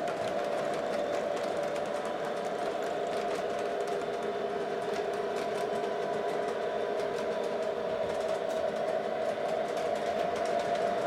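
O gauge three-rail model double-stack container cars rolling past on metal track: a steady hum with fine, rapid clicking from the wheels.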